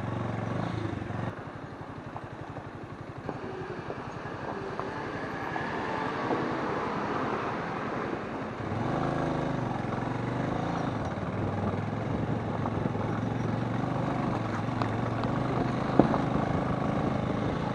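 Motorcycle engine running at low speed over a rough gravel road, getting louder about nine seconds in as the rider opens the throttle. A single sharp knock near the end.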